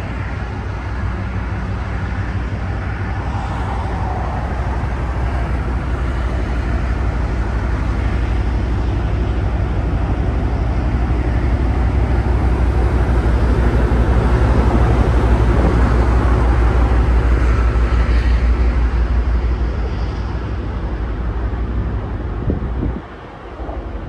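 Deep, steady rumble from a large container ship passing close below, swelling to its loudest midway and easing off, with a brief drop just before the end. Wind buffets the microphone throughout.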